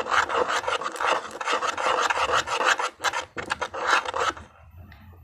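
Loud, rapid rasping and scratching strokes from cutting pieces of material apart by hand, stopping a little over four seconds in.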